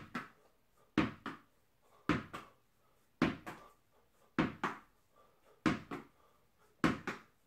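A tennis ball bouncing and being caught over and over at a steady rhythm, about once a second. Each throw gives a sharp double knock.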